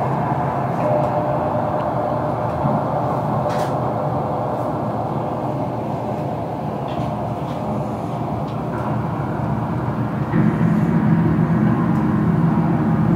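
Live experimental noise music from turntables and electronics, played through PA speakers: a dense rumbling wash with a few steady tones held through it. The low rumble swells louder about ten seconds in.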